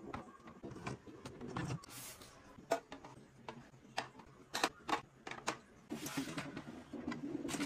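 Irregular clicks and knocks of hard plastic kitchen organizers being handled and slid in and out: first a stacking egg drawer in a fridge, then a pull-out spice rack.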